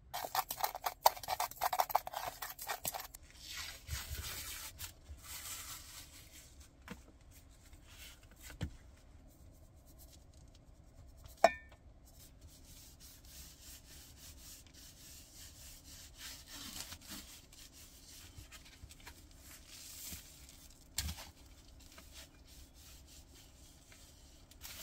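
Dry spice rub being mixed and then rubbed by hand into a rack of raw ribs on a foam tray: rapid rattling clicks for the first few seconds, scattered small knocks, a single sharp clink of a metal cup about halfway through, then soft scratchy rubbing of gloved hands over the meat. A faint steady hum runs underneath.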